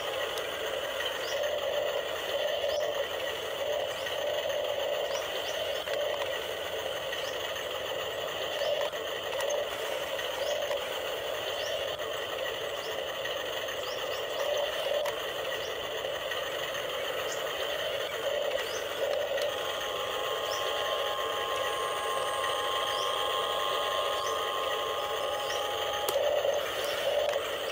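Electric gear motors of a radio-controlled Huina excavator whirring steadily as the machine works, with a light rattle. A steadier hum joins about two-thirds of the way through, and a few clicks come near the end.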